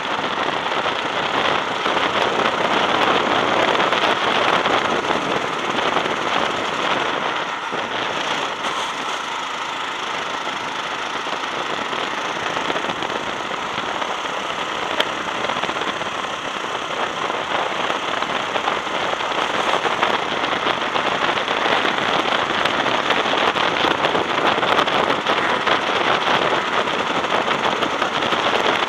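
Go-kart engine running at speed under a dense crackling wind rush on the onboard camera's microphone, swelling and easing slightly through the lap.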